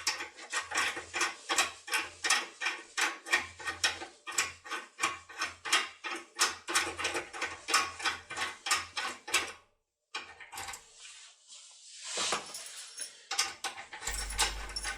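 Foil pick tool being worked back and forth inside an ASSA ABLOY lock cylinder, making quick metal clicks about four or five a second. The clicking stops about ten seconds in, followed by softer handling noise.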